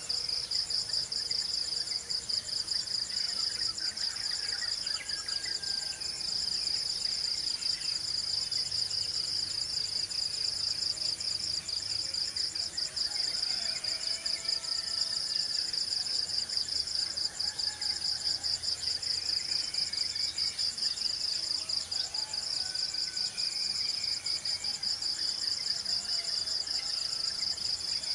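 A steady, finely pulsing high-pitched trill of insects, cricket-like, sounding without a break, with scattered faint bird calls beneath it.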